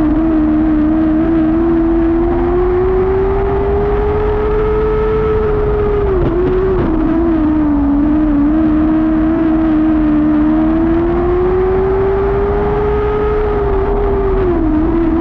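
Lightning sprint car engine running hard around a dirt oval. Its pitch climbs steadily for several seconds, then drops sharply when the driver lifts, about six seconds in and again near the end, before picking back up.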